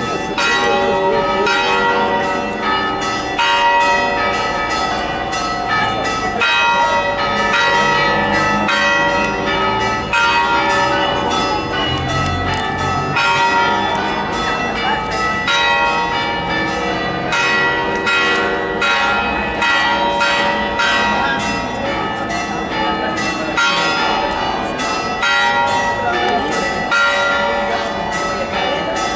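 Church bells pealing festively, with quick repeated strikes whose ringing tones overlap into a continuous clangour.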